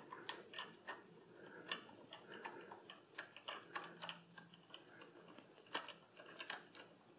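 Faint, irregular ticks and clicks as a HeliCoil tap on a ratcheting T-handle tap wrench is turned by hand, cutting new threads into the intake manifold's stripped M6 bolt hole.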